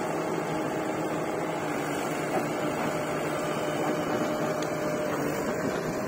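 Diesel engines of a Mahindra tractor and a backhoe loader running steadily at close range, a dense even mechanical hum with a faint steady drone.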